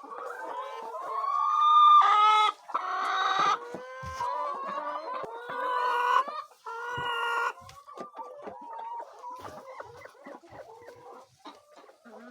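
A rooster crowing, its calls loudest about two seconds in, with chickens clucking, the clucks short and softer through the second half.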